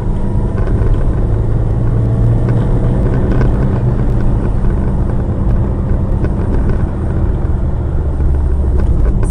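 Steady low rumble of a car driving, engine and tyre noise on a snow-covered road heard from inside the cabin, with a few faint ticks.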